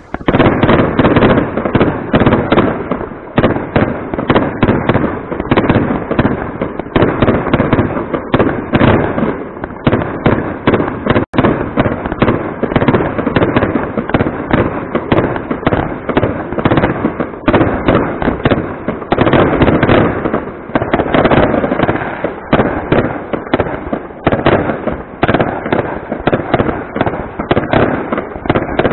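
Aerial fireworks bursting in a dense, unbroken barrage, many loud reports a second.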